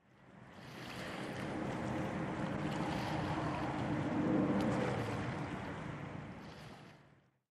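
Waterside ambience of wind and water: a steady rushing noise with a faint low hum under it, fading in over the first second and fading out near the end.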